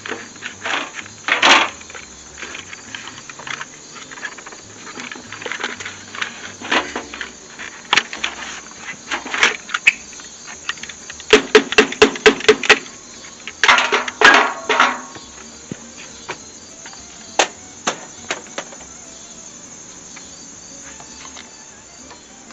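Knocks, scrapes and rattles of the air filter being worked out of its housing on a Bobcat 873 skid steer, with a quick run of about eight sharp raps midway. Crickets chirp steadily throughout.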